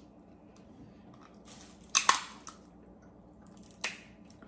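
Crab or lobster shell being cracked and picked apart by hand, with close-up eating sounds: a crunching burst with sharp cracks about two seconds in, and a single sharp crack near the end.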